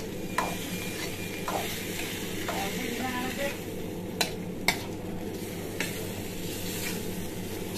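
Penne pasta in red sauce sizzling as it is stir-fried in a wok, a metal spatula scraping through it and knocking sharply against the pan several times, over a steady low hum.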